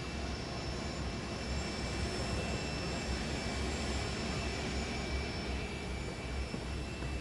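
Aircraft jet engines running steadily: an even rush of noise with several high whining tones held level throughout.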